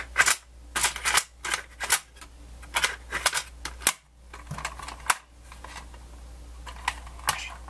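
Sharp plastic clicks and clacks of an RCA personal cassette player being handled: a cassette snapped into its door and the transport keys pressed again and again. The clicks come thick in the first five seconds, then fewer and softer.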